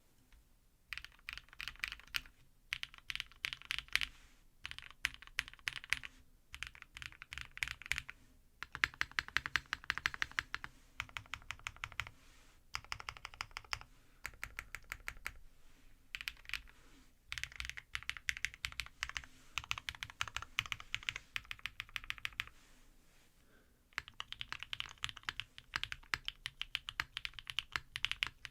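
Typing on an Ai03 Vega gasket-mount mechanical keyboard with a forged carbon fiber plate and lubed Zaku Ink Pie switches: fast runs of key clacks in bursts of a few seconds, broken by short pauses.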